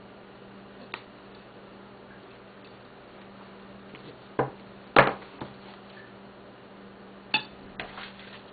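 A handful of sharp clinks and knocks of small hard objects, the loudest about halfway through and a quick cluster near the end, over a faint steady hum.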